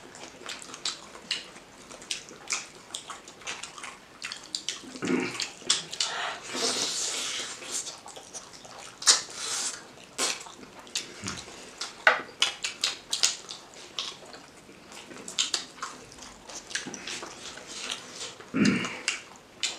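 Close-miked wet eating sounds of two people eating chicken curry and rice by hand: chewing, lip smacks and fingers squishing rice through the gravy, heard as a dense run of short sticky clicks and crackles.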